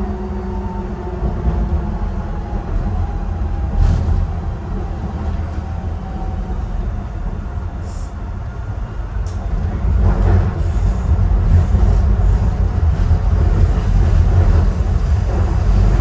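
Docklands Light Railway train running on elevated track, heard from inside the front car: a steady low rumble of wheels on rail with a faint falling whine in the first few seconds. There are sharp clicks at about 4, 8 and 9 seconds, and from about 10 seconds on the running gets louder and rougher.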